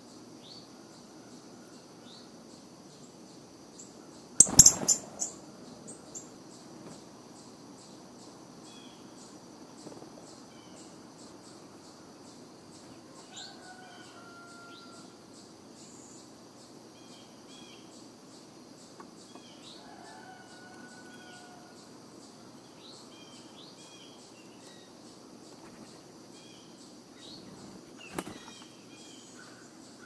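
Outdoor bird ambience: scattered short bird calls and a few whistled notes over a steady, evenly pulsing high insect drone. There is a loud, brief clatter about four seconds in and a shorter one near the end.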